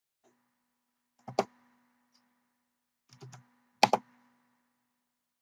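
Computer keyboard keystrokes: a quick pair of key presses about a second in, a few softer taps around three seconds, then two loud presses just before four seconds, with quiet between.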